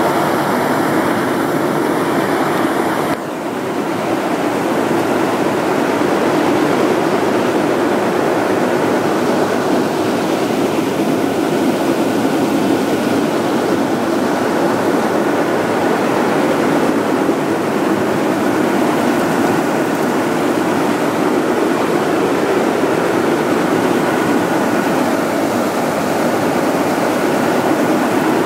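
Manual walk-behind push sweeper at work on rough concrete: its wheel-driven disc side brushes and main brush scrub the surface with a loud, steady noise. There is a slight change about three seconds in.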